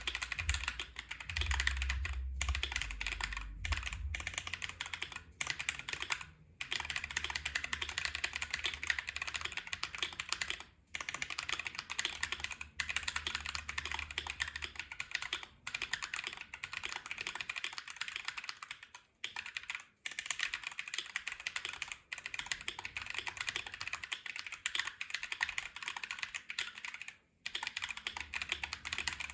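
Continuous fast typing on a mechanical keyboard with unlubed Neapolitan Ice Cream switches, GMK keycaps and an FR4 plate in an aluminum case: dense clacking keystrokes with a few brief pauses.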